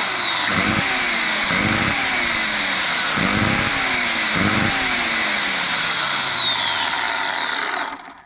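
Ryobi ECS-2040 electric chainsaw motor running at speed, its pitch swelling and sagging about once a second, then cutting off suddenly near the end. The motor is running with its carbon brushes exposed and arcing heavily, a fault the owner cannot explain.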